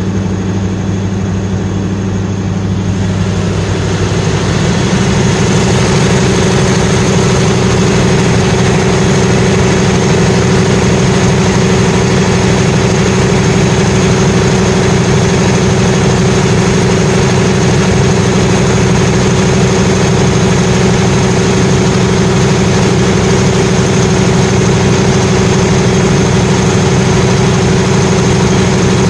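500 kVA Perkins diesel generator set running steadily with a deep, even engine note and a fan hiss. About four seconds in it grows louder and brighter, then holds steady.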